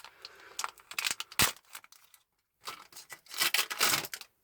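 Crinkling and tearing of a Pokémon booster pack's foil wrapper being ripped open, with scattered clicks and one sharp knock about a second and a half in.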